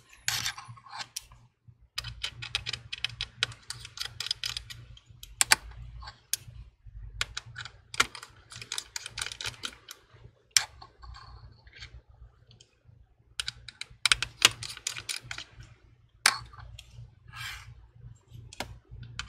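Small tri-point screwdriver working the tiny screws out of an iPhone 11's internal metal bracket: runs of light, rapid clicks and ticks, with a few louder single taps.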